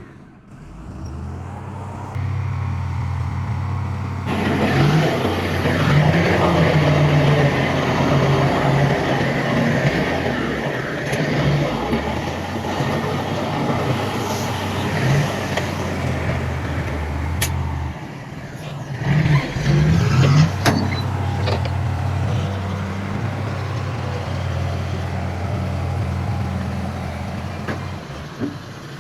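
Heavy diesel engines of earthmoving machinery running with a steady low drone. They work louder from about four seconds in, ease off briefly past the middle, then pick up again.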